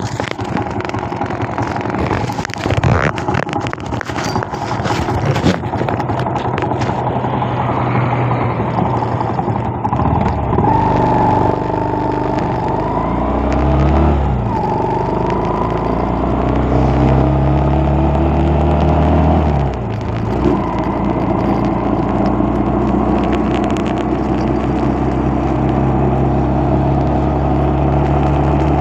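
Engine of the vehicle carrying the camera, pulling away and accelerating. Its pitch rises, drops at a gear change about halfway through and again about two-thirds through, then holds steady at cruising speed. Rough wind and knocking noise fill the first third.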